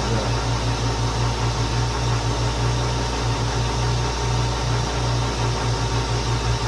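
Large metal lathe running during a hand-fed cut: a steady low hum over an even mechanical noise.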